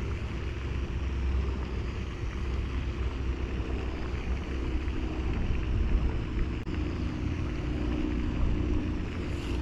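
A steady low motor hum with a rumble underneath, unchanging in pitch.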